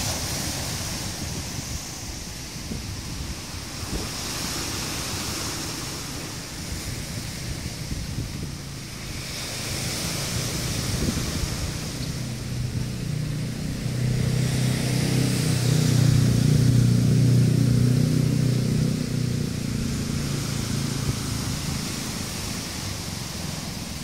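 Sea waves breaking and washing over a rocky shore, a steady surf noise that swells in hissing surges every few seconds. Wind buffets the microphone, and a low rumble builds to the loudest point about two-thirds of the way through.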